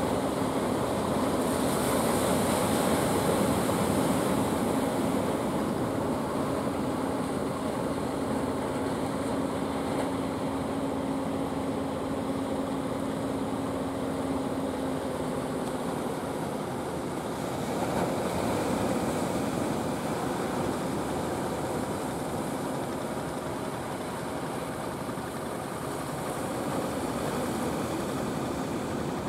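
Fishing boat engine running with a steady hum over the wash of waves, the hum fading out about halfway through.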